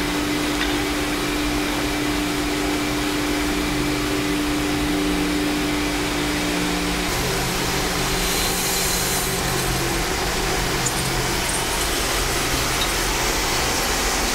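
Steam-plant boiler-room machinery running steadily: a loud whir with a low hum underneath. A steady tone stops about seven seconds in, and a short hiss comes about eight to nine seconds in, as a valve is worked.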